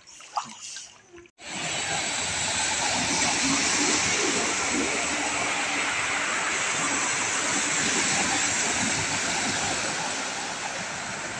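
Floodwater rushing across a flooded road: a loud, steady rushing that starts abruptly about a second in, with vehicles wading through the water near the end.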